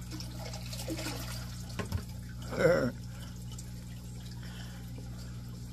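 Water with fish in it poured from a bucket into an aquarium, trickling and splashing, over a steady low hum. A short voice sound breaks in about halfway through.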